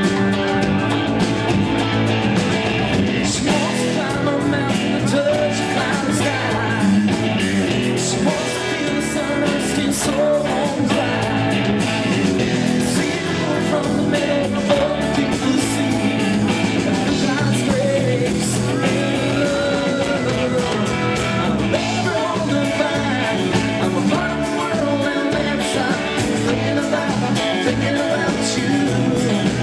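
Country-rock band playing live, electric guitars and drum kit amplified through stage speakers, with gliding guitar lines over a steady beat.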